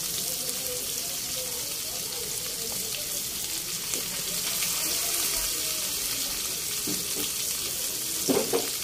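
Whole round scad (galunggong) frying in a pan of hot oil: a steady sizzle with fine crackling. A couple of short sharp knocks come near the end.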